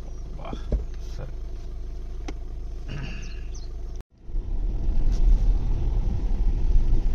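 Volkswagen car heard from inside the cabin: a steady low engine hum while stopped, then, after a cut about four seconds in, a louder low rumble as it drives over a rough, puddled mud road.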